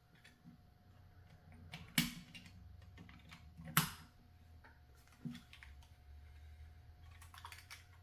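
Sharp plastic clicks and knocks from a toy RC bulldozer being handled and turned over: two loud snaps about two and four seconds in, with lighter taps and rattles between and a small cluster near the end.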